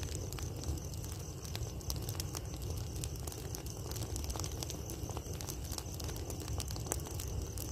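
Large pile of burning rice straw crackling and popping continuously, over a steady low rumble of strong wind on the microphone.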